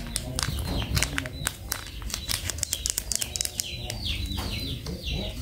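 A plastic batter-mix packet crinkles and crackles as it is shaken and tapped empty into a plastic bowl, with dense sharp crackles through the first three seconds. Birds chirp in quick repeated falling notes from about three and a half seconds in.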